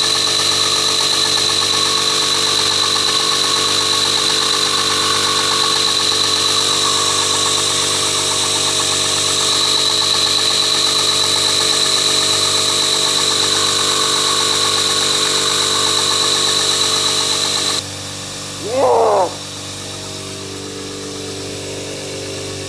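2x72 belt grinder running steadily, a loud even motor-and-belt sound with a high whine. About eighteen seconds in it drops to a quieter steady hum, and a brief sliding tone sounds a second later.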